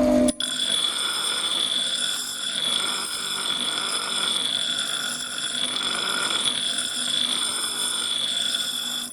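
High-speed power tool running with a steady high whine over a noisy hiss, swelling and easing roughly once a second as it is worked. It starts suddenly just after a cut.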